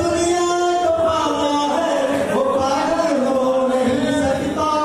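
A man singing into a microphone, with long held notes that slide between pitches.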